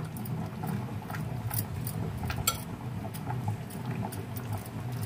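Hand kneading and squishing a thick, wet gram-flour and maida batter in a glass bowl, with scattered light clicks over a low steady hum.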